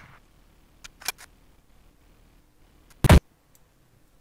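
Two loud, short rifle gunshot sound effects from the animation's audio track, one right at the start and one about three seconds in. A few fainter sharp clicks come about a second in.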